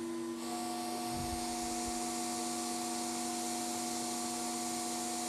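Smoke evacuator running beside the face, a steady suction hiss with a low hum. A steady higher tone joins about half a second in and holds.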